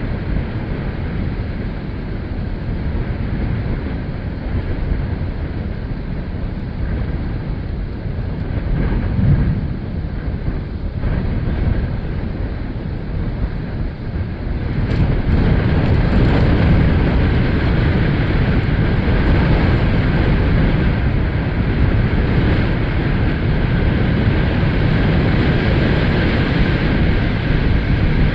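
Storm wind buffeting the microphone, a steady rumbling rush that grows louder about halfway through.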